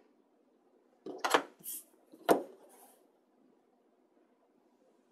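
Clear acrylic grid ruler set down and shifted on chipboard over a hard tabletop: a few sharp clacks about a second in and a loudest single clack a little after two seconds, with short scrapes of the ruler sliding.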